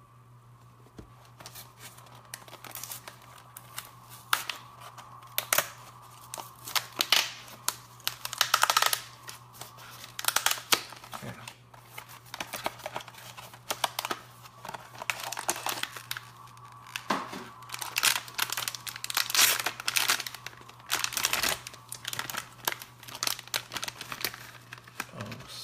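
Blind-box packaging for a vinyl mini figure being torn open and crinkled by hand, in irregular rustling bursts over a steady low hum.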